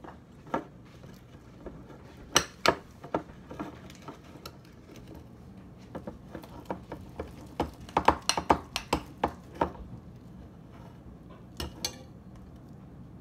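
A utensil clicking and knocking against a bowl as slime is stirred, in irregular clusters of sharp taps.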